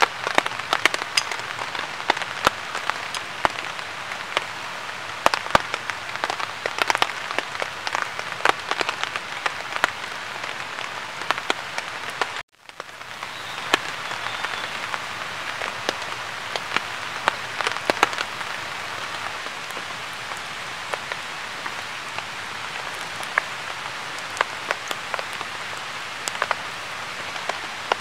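Small campfire of feather sticks crackling and popping as it catches and burns, over a steady hiss. The sound cuts out briefly about halfway through, and the pops are thicker before the break than after.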